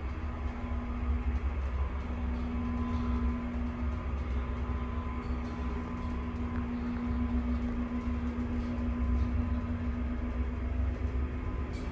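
Historic Otis hydraulic freight elevator travelling: a steady low hum and rumble from the hydraulic drive, with a steady droning tone over it and a few faint clicks.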